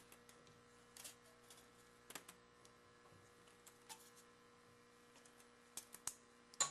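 Light, scattered clicks and taps as a homemade blimp microphone windscreen's plastic frame and mesh cover are handled, a few isolated clicks with the sharpest near the end, over a faint steady hum.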